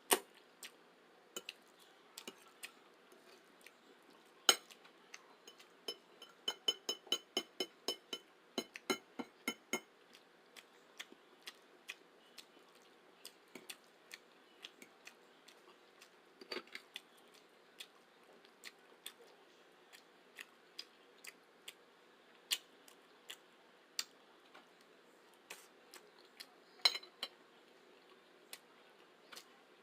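Metal cutlery clicking and clinking against a dish while eating spaghetti, with a quick run of ringing taps from about six to ten seconds in and scattered single clicks elsewhere.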